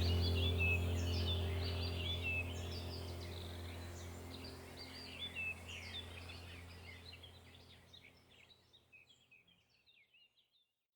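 Small aviary birds chirping and twittering in quick, overlapping calls over a steady low hum, the whole sound gradually fading out.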